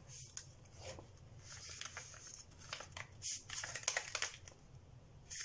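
Paper and cardboard rustling and crinkling as hands handle and fit together paper-covered cardboard tubes, in irregular scrapes with a busier flurry about three to four seconds in.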